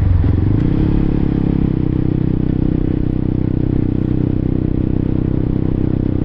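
Honda CBR1000RR-R Fireblade's inline-four engine running on the move. The revs dip and climb back right at the start, then hold steady.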